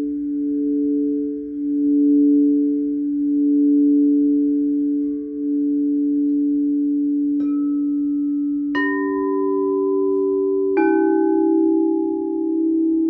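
Singing bowls in a sound bath: a sustained low hum of two steady tones that slowly pulses, with three struck tones about seven, nine and eleven seconds in, each ringing out and fading over a couple of seconds.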